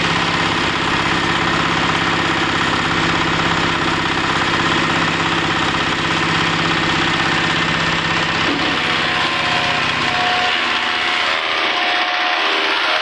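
Wood chipper's engine running steadily. About ten seconds in, the low engine note drops away and a higher, noisier sound takes over.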